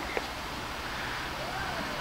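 Steady outdoor background noise with one sharp click near the start and a faint, brief distant voice about a second in.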